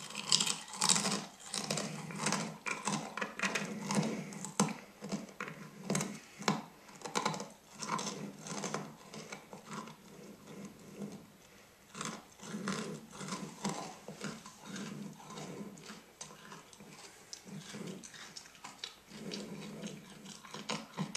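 Fortune cookies being chewed close to a karaoke microphone: a long run of irregular, crackly crunches, with a lull about halfway.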